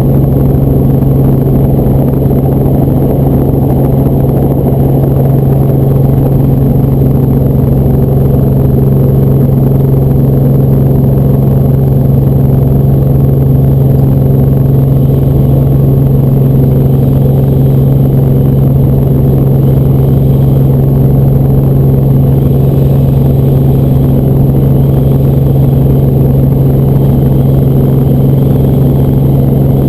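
Helicopter's engine and rotors running: a loud, steady drone with a strong low hum and a faint high whine.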